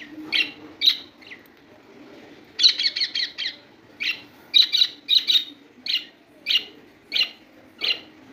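Pet budgerigars chirping: short, sharp high chirps, a quick run of them about two and a half seconds in, then single and paired chirps at an even pace of roughly one every two-thirds of a second.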